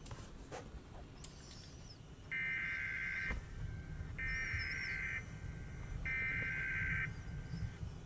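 Emergency Alert System SAME header: three one-second bursts of warbling digital data tones with about a second between them, the coded preamble that opens an EAS alert, here for a National Weather Service severe thunderstorm warning. The tones play from the computer running the EAS software.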